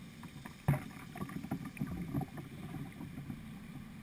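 Kayak being paddled on a fast, flood-swollen river: irregular paddle splashes and water noise, with one sharp knock just under a second in.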